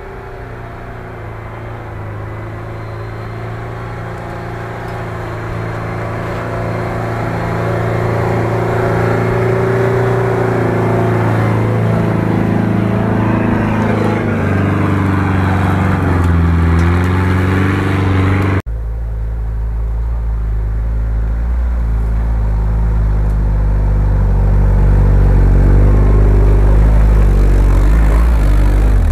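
Off-road SUV engines working up a snowy track: one engine grows steadily louder as the vehicle approaches, with revs rising and falling, then after an abrupt cut about two-thirds through a second 4x4's engine runs close and deeper, under load, as its wheels churn through snow.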